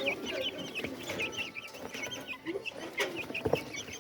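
A large flock of Australorp chickens clucking and cheeping, many birds at once. Two sharp knocks come near the end.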